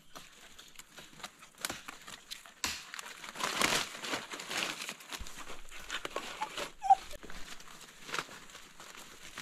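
Leaves and undergrowth rustling and crackling in irregular bursts, as of people moving through and handling forest plants. A single short squeak-like note sounds about seven seconds in.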